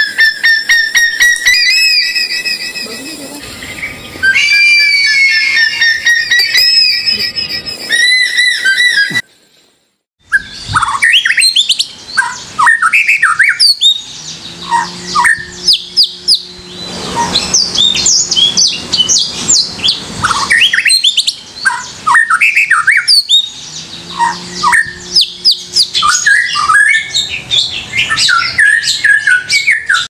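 Clear, pure whistled notes repeated for about nine seconds. After a short break, a songbird sings a quick, varied song of chirps and whistles.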